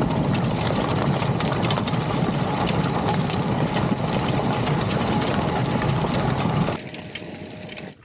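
Mounted plough at work: soil and stones scraping and crackling over the plough bodies, with the tractor engine running under the rumble. About seven seconds in the sound drops sharply to a much quieter level.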